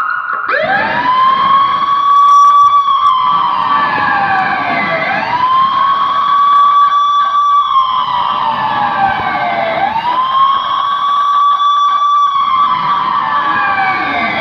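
Wailing siren sounding as an earthquake-drill alarm. Its pitch climbs quickly, holds, then slowly sinks, in three long cycles, with a fourth rise starting near the end.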